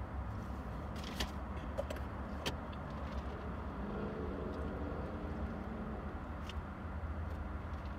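Steady low rumble of a stationary car heard from inside its cabin, with a passing car going by about four seconds in and a few faint clicks.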